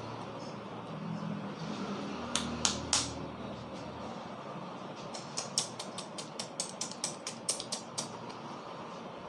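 Sharp slaps and taps of hands on the head during a vigorous head massage: two or three loud smacks, then a quick rhythmic run of about a dozen, some four or five a second.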